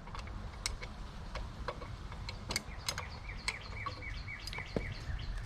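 Ratchet with a 7/16 socket clicking in short irregular runs as a license plate bracket fastener is worked loose.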